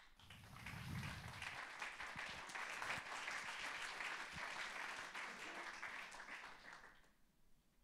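Audience applauding: many people clapping together, dying away about seven seconds in.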